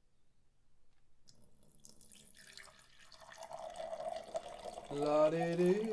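A man urinating into a toilet: a liquid stream splashing into water, growing steadily louder. Near the end he starts humming a tuneless 'la-di-dee' over it.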